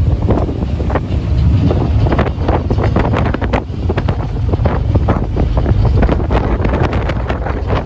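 Strong, gusty wind buffeting the microphone: a loud low rumble with rapid rushing gusts rising and falling over it.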